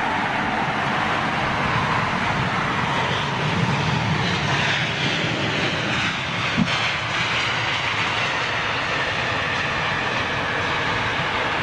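Jet airliner's engines running as it passes, a steady rushing noise with faint gliding whine tones. A short knock sounds a little past halfway.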